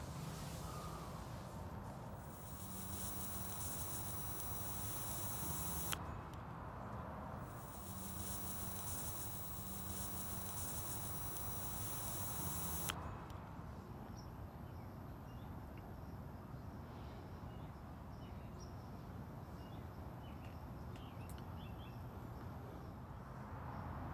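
Electric plasma arc lighter buzzing twice, for about four and then about five seconds, each time starting and cutting off suddenly.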